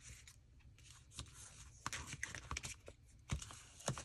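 Faint rustling and light irregular taps of paper tags and card being handled and laid down.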